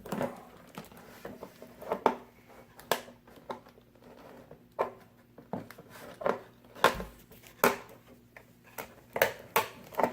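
Scissors snipping and plastic toy packaging being handled, with irregular sharp clicks, short rustles and a dull knock about seven seconds in, as a toy is cut free from its box.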